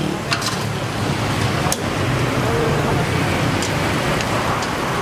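Steady roadside street noise of passing traffic, with a couple of sharp clicks, one just after the start and another a little under two seconds in.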